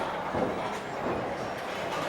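Bowling alley ambience: a steady rolling rumble of balls on the lanes under a murmur of voices, with a few faint knocks.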